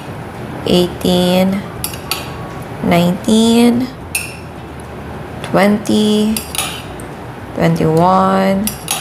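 Metal spoon clinking and scraping against a mug and a glass mixing bowl as evaporated milk is spooned in, one spoonful about every two seconds, with a voice counting the spoonfuls in between.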